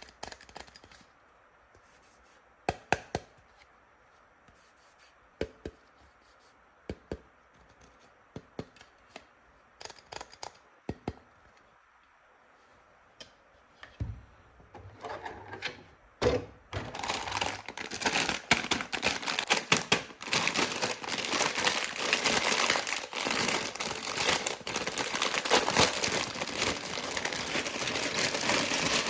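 Plastic toy tools and packaging being handled: scattered single taps and clicks, then from about halfway a dense, continuous clatter of rapid clicks and rustling.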